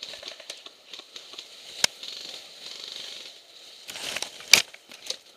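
Rustling and scuffing of gear and movement, broken by two sharp cracks of airsoft gunfire, the louder one about four and a half seconds in.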